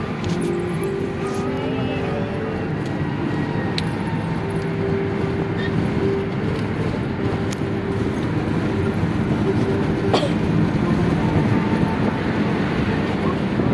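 A car's engine and road noise heard from inside the cabin while driving: a steady rumble with a low hum, and a sharp click about ten seconds in.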